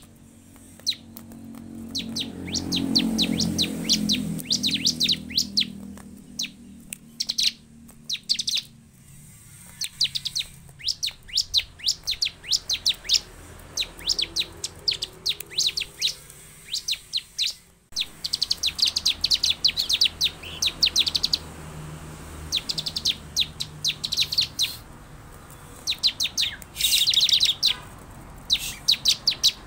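Bar-winged prinia (ciblek) singing: quick runs of high, dry chirps lasting a second or two each, repeated again and again with short pauses between them. A low hum swells and fades a few seconds in.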